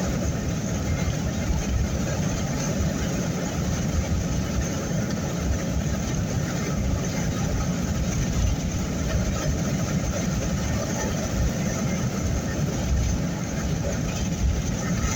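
Steady road and engine rumble inside a moving truck's cab, heaviest in the low end and wavering without any distinct events.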